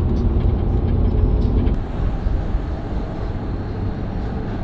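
A lifted Lexus SUV driving, heard from inside the cabin with a window open: steady road and engine rumble with wind noise. About two seconds in, the low rumble eases and a more even hiss takes over.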